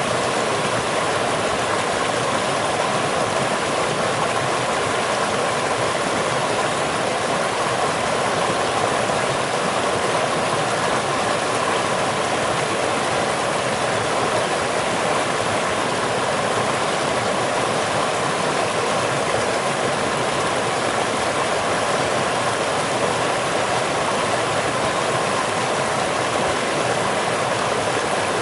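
Running water: a steady, even noise that does not change.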